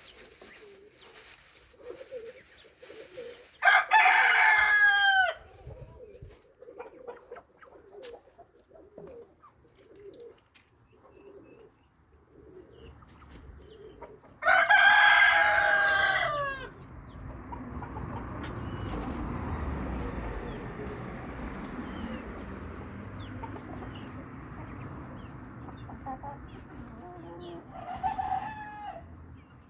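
A rooster crowing twice, each crow loud and lasting about a second and a half, with soft low clucking between the crows. A steady rushing noise sets in after the second crow, and a shorter call comes near the end.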